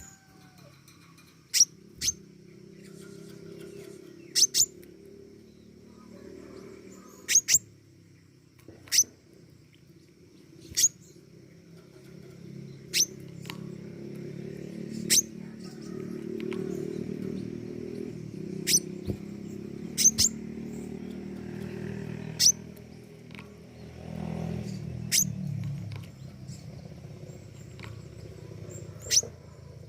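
Pentis raja songbird calling in short, sharp, very high chirps, one every second or two, over a low steady hum.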